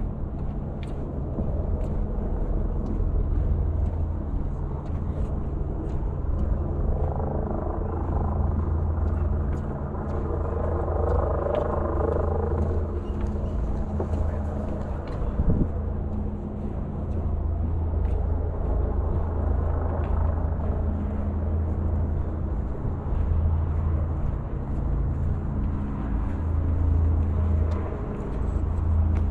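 Steady low rumble and hum of city road traffic, swelling as a vehicle passes about ten seconds in.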